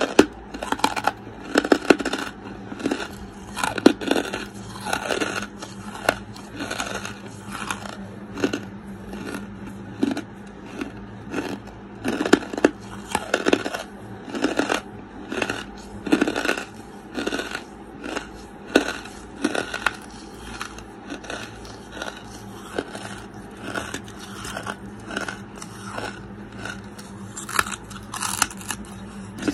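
Close-miked chewing of lumps of charcoal: dry crunches roughly once a second, with a bite into a fresh chunk near the end.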